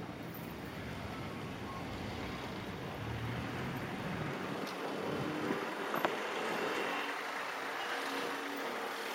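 Street traffic noise, with a motorcycle engine running close by in the second half.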